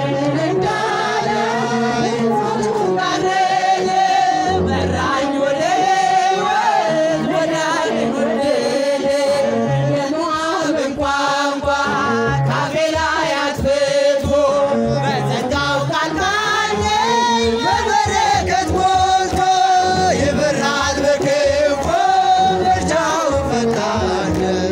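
A woman singing an Ethiopian Orthodox Tewahedo mezmur (hymn) into a handheld microphone through a PA, with long wavering, drawn-out notes.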